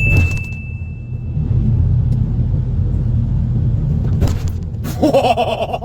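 A steady, loud low rumble, with a single high ringing tone that fades away over the first second or two and a brief voice-like sound near the end.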